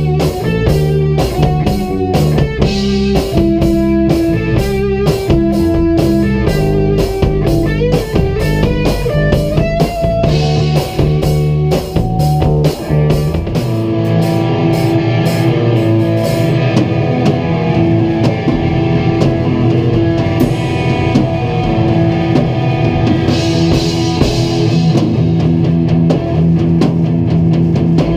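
Rock jam on drum kit, electric guitar and bass guitar. The drumming is dense and steady at first. About halfway through, the deepest bass notes drop out and the drumming thins, while the guitar keeps playing held notes.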